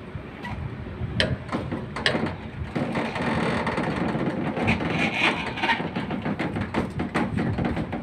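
Crane engine running steadily during the lift of a cooling tower unit, louder from about three seconds in, with scattered knocks and clicks from the rigging.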